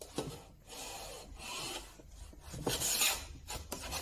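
Hand plane taking shavings off the edge of a wooden door panel: about four rasping strokes, with a couple of light knocks near the end.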